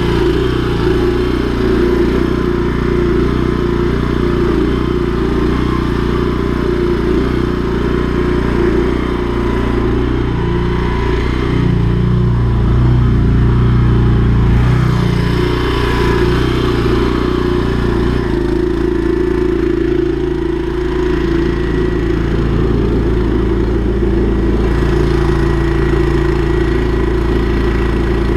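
Engine of a high-pressure drain jetting machine running steadily while jetting, its note shifting a little about twelve seconds in and again about eighteen seconds in.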